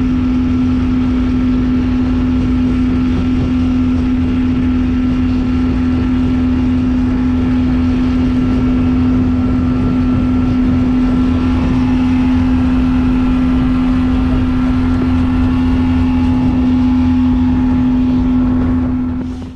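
Small boat's motor running steadily at cruising speed, a constant hum that holds the same pitch throughout, over the rush of wind and water.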